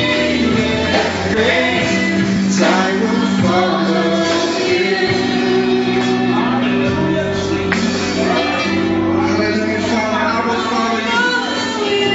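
Live gospel worship music: a band playing with singers' voices over held chords.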